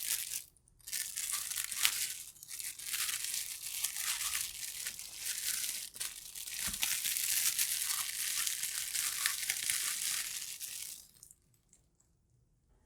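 Paper crinkling and tearing in a continuous crackly rustle that stops suddenly about eleven seconds in.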